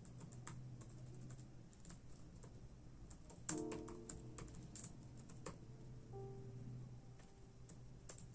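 Typing on a computer keyboard: irregular key clicks, coming thickest in a run about halfway through, over soft background music.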